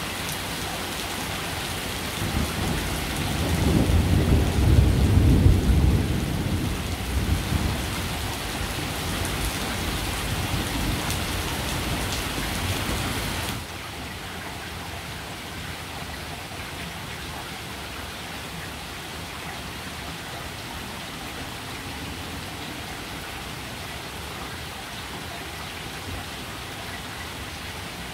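Steady rain with a rolling thunder rumble that builds about two seconds in, is loudest around five seconds and dies away by about eight. About halfway through, the rain hiss drops suddenly to a quieter, steadier level.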